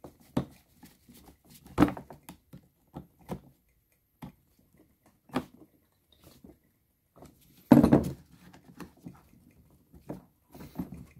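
Light clicks, taps and scrapes of a metal screwdriver turning a screw into a small engine's recoil starter pulley to clamp the new pull cord. A louder knock comes about three quarters of the way through.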